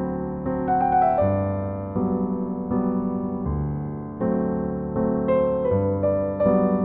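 Background music: soft piano playing a slow melody over sustained chords that change about every second and a half.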